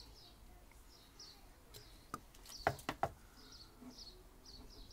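Small birds chirping over and over in the background, with a few sharp clicks about halfway through as the aluminium spacer bar from a double-glazing unit is handled over a foil tray.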